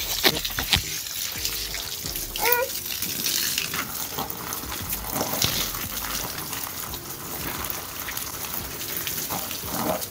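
Water from a garden hose spraying onto a rain suit and splattering off it in a steady hiss. A few sharp splashes come near the start.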